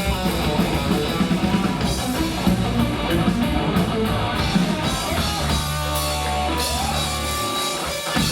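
Rock music with guitar, bass and drums.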